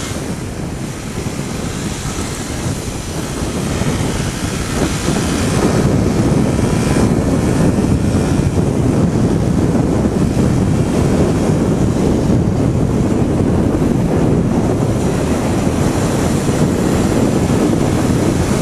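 Wind rushing over the microphone of a moving motorcycle, with the bike's engine running beneath it. It grows louder over the first several seconds as the bike picks up speed, then holds steady.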